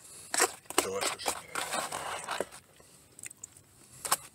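Close-up chewing and mouth noises of someone eating a meal, with a few sharp clicks among them.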